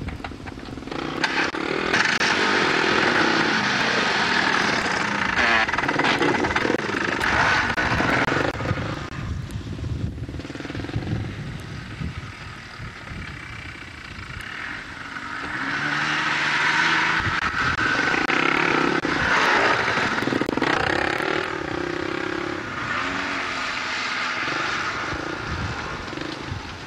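Small engine of a homemade off-road buggy running and revving up and down as it is driven about. It drops back around ten seconds in and comes up loud again about sixteen seconds in.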